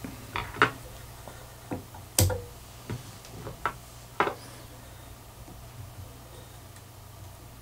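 Scattered light clicks and taps from hands and tools working a fly in a fly-tying vise, about seven in the first four seconds, the sharpest a little past two seconds in. A low steady hum runs underneath.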